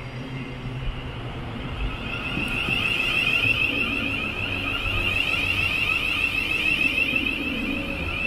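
Door-closing warning on a Thameslink Class 700 train: a high, rapidly pulsing beep that starts about two seconds in and keeps going, over the low hum of the train standing at the platform.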